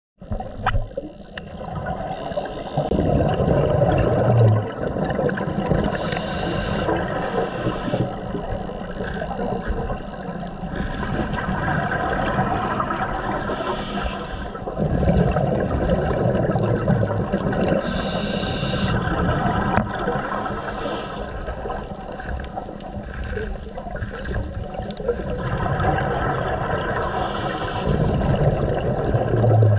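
Underwater scuba breathing through a demand regulator: exhaled bubbles gurgle in bursts several seconds apart, with hissing inhalations between them.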